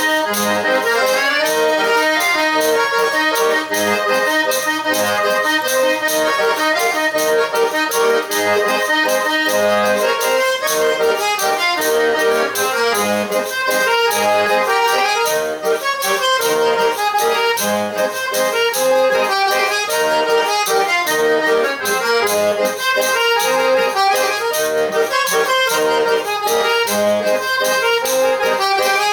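Eight-bass button accordion (pé de bode) playing a lively traditional dance tune at a steady loud level, with a quick, even percussive beat under it.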